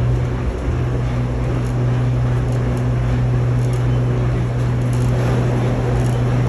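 Airport express tram running at speed, heard from inside the car: a steady low hum over even rolling noise.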